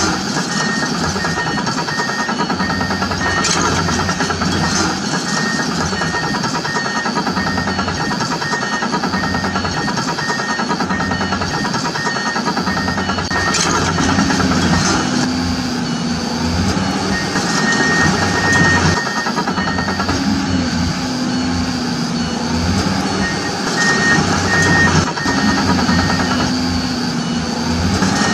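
Simulated excavator sound effect: an engine running steadily with a regular warning beep about twice a second. In the second half a lower tone that steps in pitch comes and goes.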